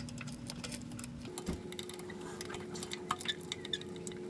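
Ratchet clicking in short, uneven strokes on a 13 mm socket and extension as the top starter mounting bolt is broken loose, over a faint steady hum.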